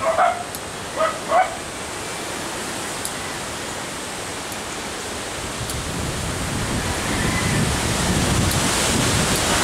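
A dog gives about three short barks in the first second and a half. Then a steady rushing noise of wind on the microphone builds and grows louder through the second half.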